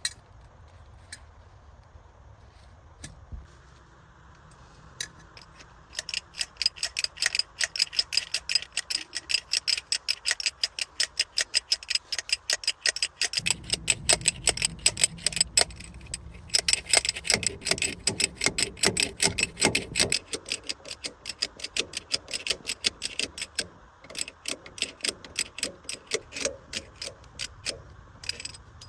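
Ratchet wrench being worked, giving rapid, even clicks of about four or five a second in long runs with short breaks. A low rumble sits under the clicking for several seconds in the middle.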